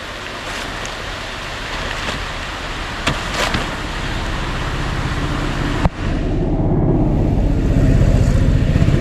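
A motor vehicle's engine running, growing louder over the second half, over a steady rushing noise, with a few sharp knocks, the loudest about six seconds in.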